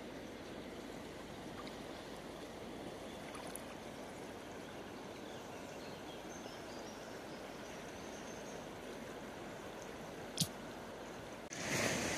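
River water flowing over a shallow stony bed, a steady even rush. Near the end there is one sharp click, and then the water gets louder and closer.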